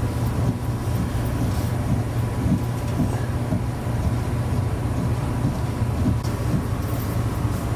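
A steady low mechanical hum, with a faint high tone held steady above it.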